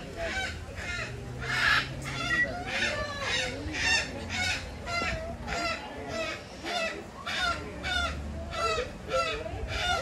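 Parrot squawking over and over, about two calls a second.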